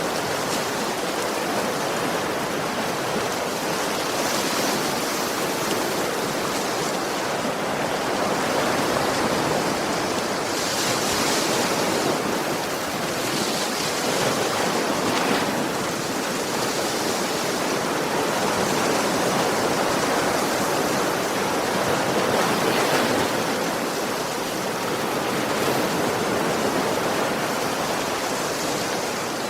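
Sea waves breaking gently on a shore: a continuous wash of surf that swells and ebbs every few seconds.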